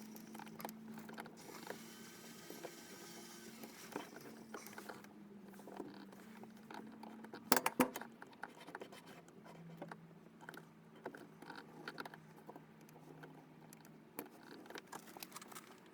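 Faint handling noises of a pipe fitting and tools being worked by hand: scattered light scrapes, rustles and small clicks, with two sharper clicks about halfway through, over a steady low hum.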